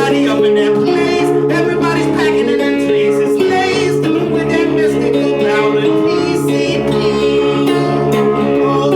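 Blues song played live: a guitar holding steady, droning low notes while a man sings.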